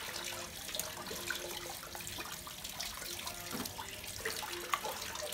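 Wet squelching and small splashes as a freshly butchered soft-shell turtle's innards are pulled apart by hand in a basin of blood, over a steady watery hiss.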